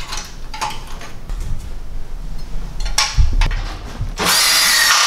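Scattered knocks and clicks of a part being handled against a vehicle frame, then about four seconds in a cordless drill starts and runs steadily, louder than the handling.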